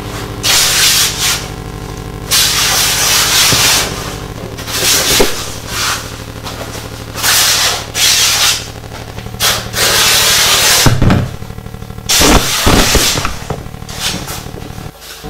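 Large dyed sheets of fabric and paper being swung, flapped and crumpled by hand, rustling and swishing in about seven loud bursts, over a steady low hum.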